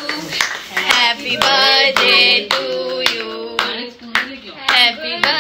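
A group clapping hands in a steady rhythm, about two claps a second, while voices sing along.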